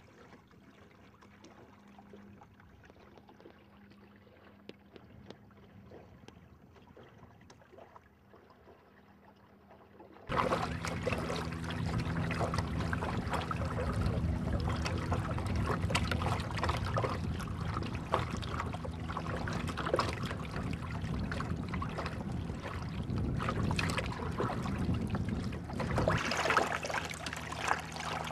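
Water lapping and trickling against the hull and outrigger float of a sailing kayak trimaran, with many small splashes. It is faint at first and becomes much louder and busier about ten seconds in.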